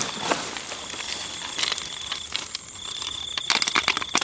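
Insects, likely crickets, trilling in a steady high tone that breaks off briefly past the middle. A dense run of sharp crackling clicks comes in near the end.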